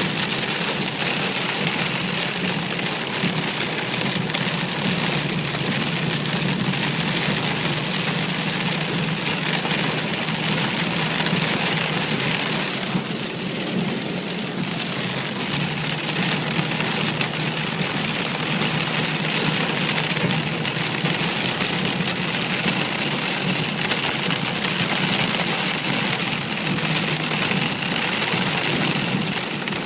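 Heavy rain pouring steadily during a thunderstorm, with a brief slight lull about a third of the way through.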